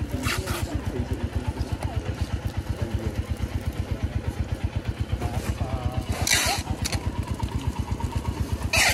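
Small engine idling with a steady, even chugging of about ten beats a second, with short hissing bursts a few times.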